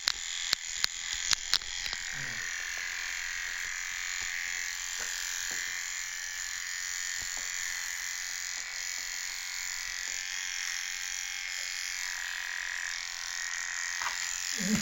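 Small motor of a handheld electric dog-grooming tool running with a steady buzz, with a few sharp clicks in the first two seconds.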